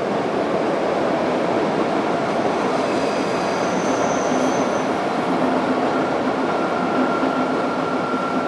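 DB class 111 electric locomotive and its regional train coaches rolling across a steel arch viaduct: a loud, steady rumble of wheels on rail and bridge, with a faint brief wheel squeal around the middle.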